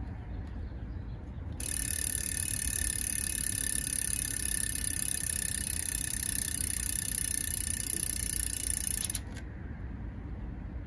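Freehub of a Fulcrum carbon road wheel ratcheting as the wheel spins freely: a steady, fast, high buzz that starts about a second and a half in and cuts off suddenly about nine seconds in.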